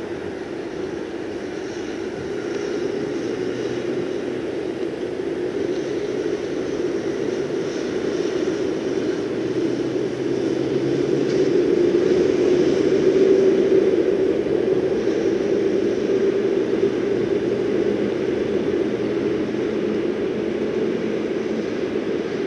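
Low engine drone of passing heavy road traffic. It swells to its loudest about halfway through and then slowly fades.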